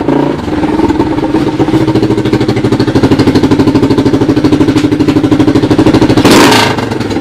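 1986 Honda TRX200SX ATV's single-cylinder four-stroke engine, fitted in a converted golf cart, running steadily with an even, rapid firing pulse. A short, loud burst of noise breaks in about six seconds in.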